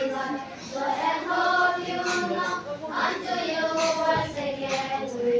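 A group of young schoolchildren singing a song together as a choir, in held notes that change every half second or so.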